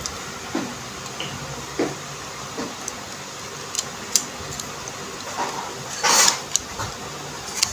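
A screwdriver tightening the screw into a metal tap spindle, with pliers gripping the parts: small metal clicks and light scrapes, and a louder scrape about six seconds in.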